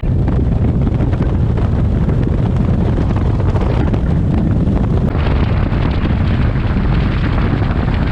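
Strong wind buffeting the microphone over the rush of a boat running at speed. The sound gets hissier about five seconds in.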